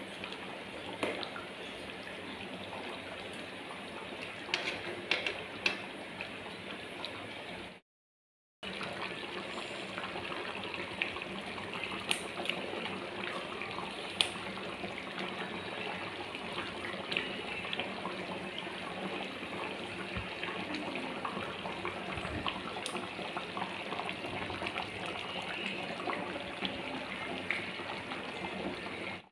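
Fish curry gravy simmering in a pan: a steady bubbling hiss with small pops, breaking off for a moment about eight seconds in.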